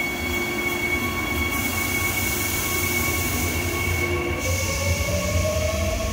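Korail Line 3 electric train pulling out past the platform screen doors: a steady rumble of the wheels on the rails under a high whine that fades out near the end. A second whine rises slowly in pitch over the last second or two.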